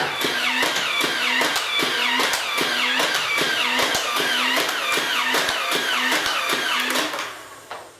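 Battery-powered NERF Elite Rhino-Fire motorized blaster firing in full auto, a rhythmic mechanical cycling of about two shots a second. It stops about seven seconds in.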